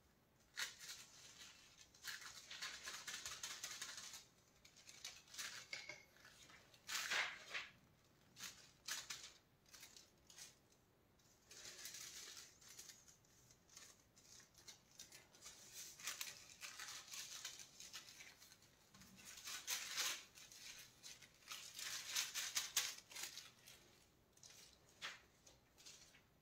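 Thin metal leaf crinkling and rustling as it is pressed and rubbed down by hand onto tacky adhesive, in irregular crackly bursts with short pauses between them.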